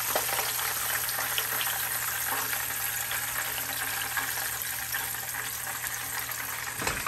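Hot oil sizzling steadily in a frying pan where a seasoned pork chop is being pan-fried, with fine crackling throughout.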